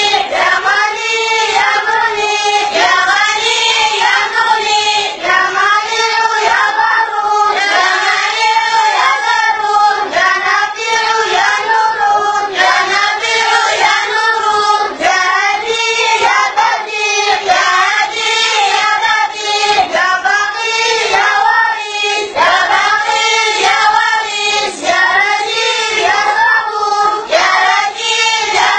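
A group of boys singing together in unison, a steady melodic chant in regular, repeating phrases.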